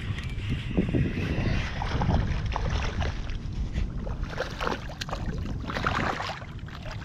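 A hooked fish thrashing at the water's surface beside a kayak, throwing irregular splashes that are loudest about six seconds in, over a steady low rumble.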